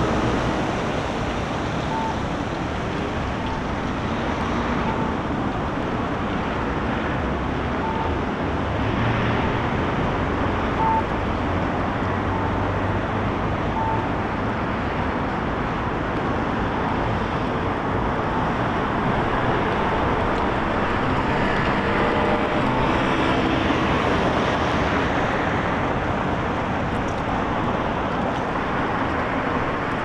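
City street traffic running steadily, mixed with wind noise. Short faint beeps at one pitch sound every second or two through the first half.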